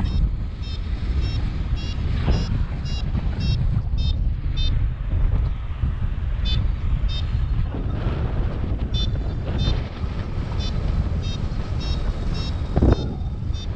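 Wind buffeting the microphone in flight, with a paragliding variometer beeping in intermittent runs of short high pips, about three a second, which signals climbing in lift. There is a louder gust of wind noise near the end.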